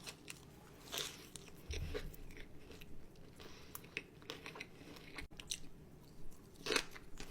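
Close-up mouth sounds of someone biting and chewing bacon-wrapped asparagus: scattered soft crunches and wet clicks, with one louder crunch near the end.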